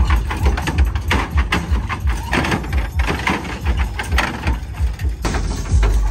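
Hydraulic dancing-bed setup on a mini truck working: the pump motors run under a low throb, with many irregular clicks and clunks as the bed tilts and lifts.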